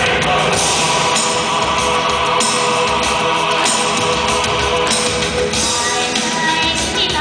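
Loud music with a group of voices singing, steady throughout.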